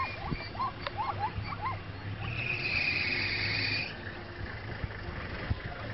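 Short rising-and-falling animal calls, about three a second, fading out after the first couple of seconds. A steady high-pitched tone follows for under two seconds, over a low steady hum.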